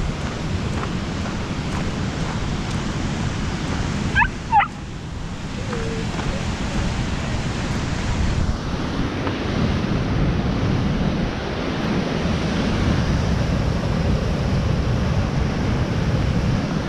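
Steady rushing of the River Tees at Low Force waterfall, a dense, low rush with some wind on the microphone. About four seconds in, two short high-pitched calls sound in quick succession over it.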